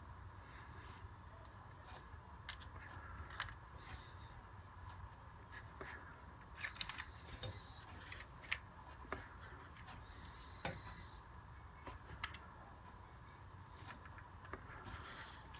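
Faint, scattered small clicks and light taps of a bent-wire coupler clip being handled and fitted onto an O gauge toy locomotive, over a steady faint hum.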